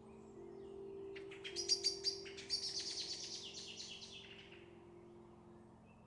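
A small songbird calling in a quick series of high, sharp chirps about a second in, speeding into a fast trill that fades out by about four seconds. Soft background music with long held low notes plays underneath.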